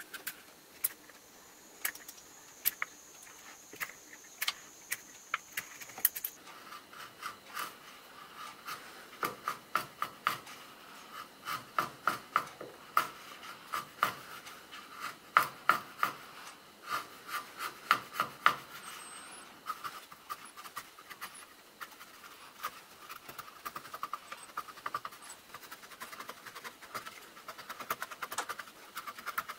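A knife blade shaving and scraping a wooden lure blank held in a vise. It makes a run of short cuts and scrapes that come thickest in the middle stretch.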